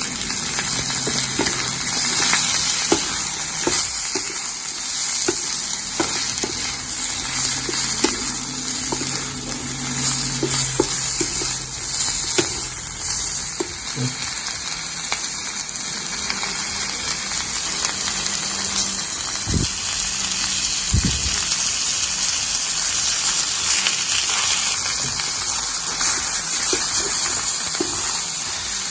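Food sizzling steadily in a hot pan while it is stirred, with scattered clicks and scrapes of the utensil against the pan.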